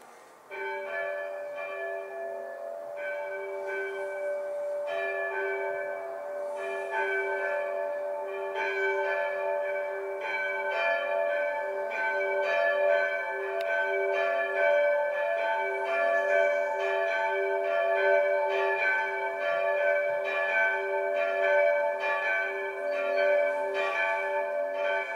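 Church bells ringing a steady peal, the strokes coming every second or two and each one ringing on into the next, calling to the Sunday service. The ringing starts about half a second in.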